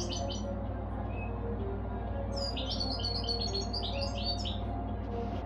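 A caged finch singing a quick twittering run of high chirps about halfway through, after a brief chirp at the start, over a steady low hum.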